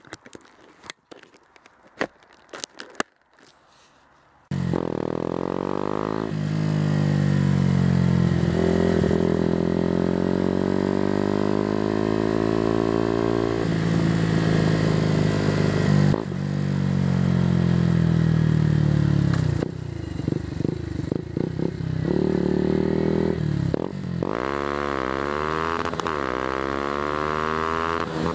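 Faint clicks, then about four seconds in the Yamaha MT125's single-cylinder four-stroke engine, through a full Akrapovic exhaust system, comes in loud. It accelerates hard through the gears, its pitch climbing in each gear and dropping sharply at each shift, and falls away near the end as the bike slows.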